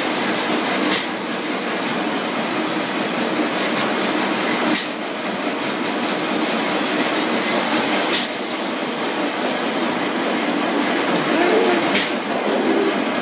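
Crossley stationary gas engine turning over on its big flywheels: steady mechanical clatter with a sharp crack about every three and a half to four seconds, four times.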